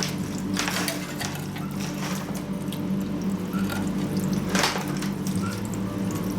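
Water being splashed or sprayed onto a warm steel shaft to cool it, in short hissing bursts, over the steady hum of a lathe.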